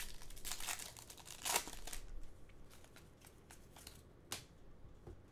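A trading card pack wrapper being torn open and crinkled, with the cards handled. A single sharp click comes about four seconds in.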